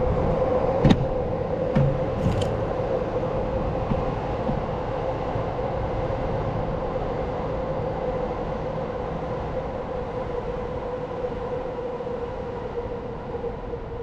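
A vehicle running steadily: a constant hum over an even noise, with a few light clicks near the start.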